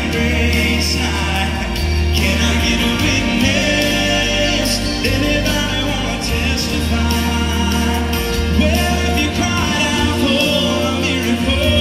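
Live gospel song through a PA: acoustic guitars and voices singing over a steady low bass.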